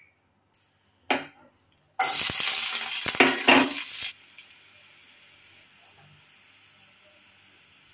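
A knock, then garlic cloves, shallots and green chillies hit hot oil in a frying pan and sizzle loudly for about two seconds, with a couple of knocks against the pan. The sizzle drops off suddenly to a faint steady frying hiss.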